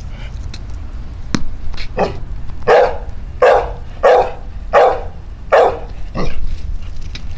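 American Pit Bull Terrier barking in a steady run of about seven deep barks, roughly one every three-quarters of a second, starting about two seconds in.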